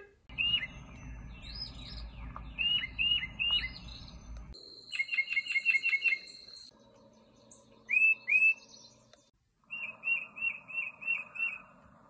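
Recorded songs of a tufted titmouse: several short series of clear whistled notes that slur downward, the last a run of about six repeated "peter" notes. A low rumble lies under the first few seconds.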